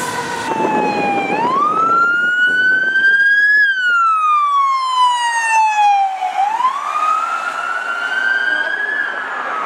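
Fire department SUV's siren on a slow wail: the pitch rises and falls twice, each rise quick at first, then slower, and each fall gradual.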